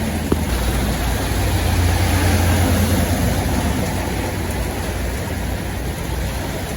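Tour bus diesel engine rumbling nearby, swelling to its loudest about two seconds in and then easing off, over steady road traffic noise. A single sharp click comes just after the start.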